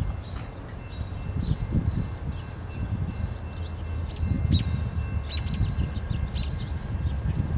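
Small birds chirping: short, quickly falling chirps that come more often after about four seconds in. Under them is a gusty low rumble of wind on the microphone.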